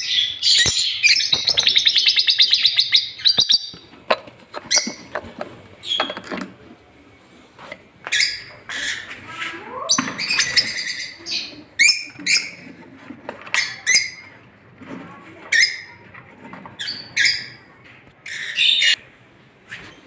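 Pet parrots in a breeding aviary, lovebirds and ringneck parakeets, chirping and squawking: a rapid high chattering for the first few seconds, then scattered short high-pitched calls.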